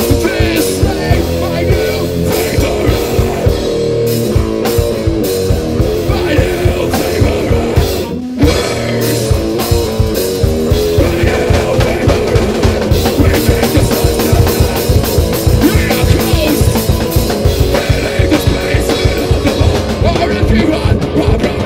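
Live rock band playing loudly: a drum kit with dense, fast strikes over bass guitar and electric guitar. The band cuts out for a split second about eight seconds in, then comes straight back in.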